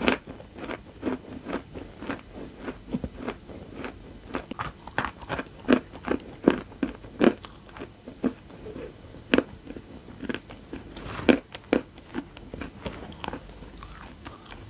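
Close-miked chewing of dry crushed chalk: a run of sharp, irregular crunches, about two a second, as the crumbs and chunks are bitten and ground.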